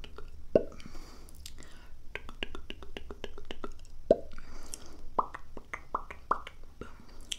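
ASMR mouth sounds: quick runs of tongue and lip clicks, with a louder mouth pop about half a second in and again about four seconds in.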